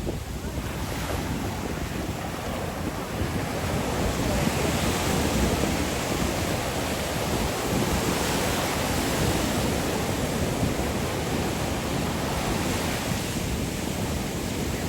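Caribbean surf washing up on a sandy beach, a steady hiss of waves that swells a few seconds in and eases off near the end.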